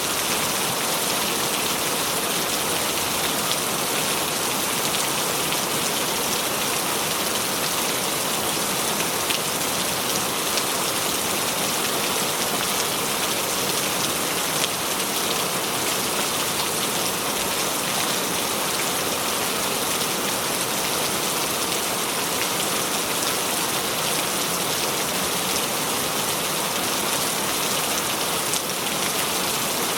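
Steady rain falling, an even hiss with scattered drops pattering, unchanging throughout.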